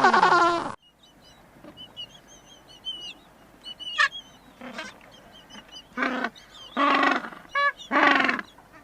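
Penguins calling. A loud, drawn-out call breaks off sharply just under a second in. After faint high chirps, four honking calls follow in quick succession from about six seconds in.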